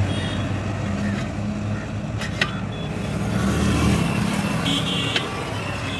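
Motor vehicle engine running steadily, with two sharp clicks, one partway through and one near the end.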